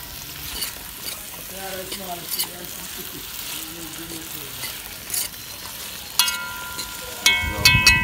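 Chopped vegetables sizzling as they fry in oil in a metal pot, stirred with a fork that scrapes and clicks against the pot. In the last couple of seconds the fork knocks the pot a few times and the metal rings on.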